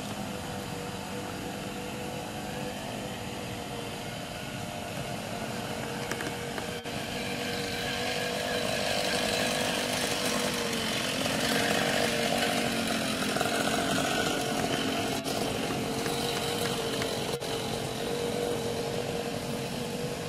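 A small engine running steadily at an even pitch. It grows louder about eight seconds in and stays louder.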